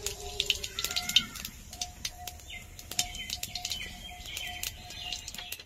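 Whole cumin seeds spluttering in hot oil with a dried red chilli: many irregular sharp pops over a light sizzle. This is the tempering stage, with the oil hot enough to make the seeds crackle.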